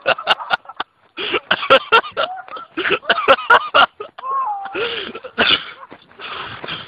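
People's voices in short, unintelligible bursts, with a rising-and-falling vocal sound about four seconds in and sharp clicks in between.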